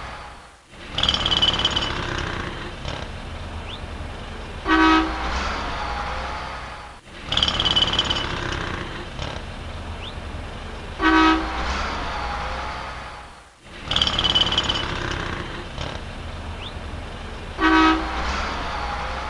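City street traffic with a car horn honking briefly three times. The same short recording repeats about every six and a half seconds, with a brief drop in level where each repeat begins.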